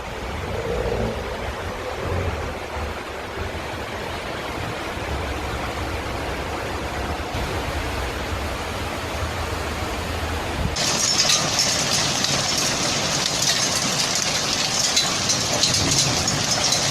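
Torrential rain falling as a steady rushing hiss, with a low rumble underneath. About eleven seconds in it switches abruptly to a louder, brighter hiss with fine crackling.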